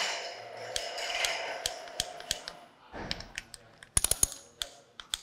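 Ratchet torque wrench clicking as the rocker-shaft locating pins on the cylinder head are tightened: scattered single clicks, then a quick run of clicks about four seconds in. A faint steady noise lies under the first half.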